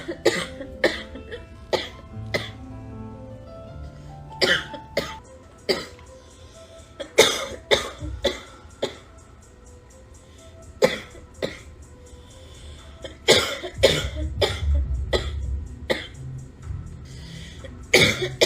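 A girl with a cold coughing again and again, in short fits of two or three coughs every few seconds, with music playing underneath.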